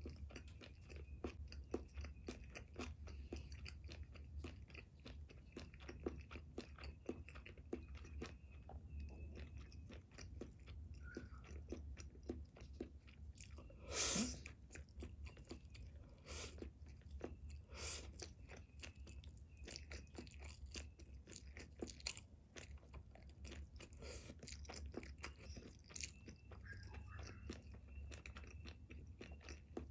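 A person chewing spaghetti close to the microphone: a dense run of small mouth clicks over a steady low hum, with one sharper, louder sound about 14 seconds in.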